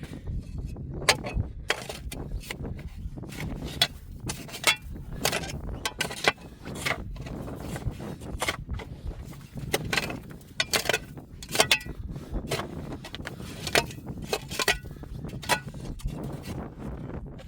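Irregular sharp clicks and knocks, several a second, with louder clusters now and then, over a steady low rumble.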